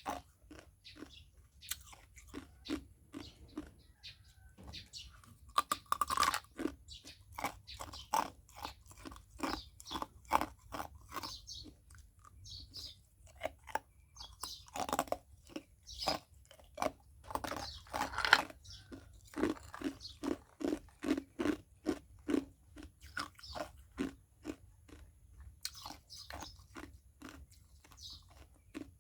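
Ice cubes being crunched and chewed in the mouth, a steady run of sharp crunches at about two a second.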